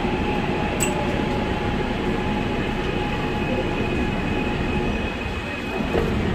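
Gwangju Metro subway train running, heard from inside the car as it approaches a station: a steady rumble with a motor whine. There is a sharp click about a second in and a knock near the end.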